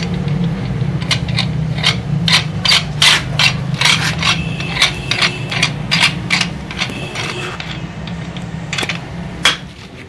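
Steel puller screw being turned with a wrench to draw off a ceiling fan's cover: a run of sharp metal clicks and scrapes, often about two a second, with brief squeaks around the middle.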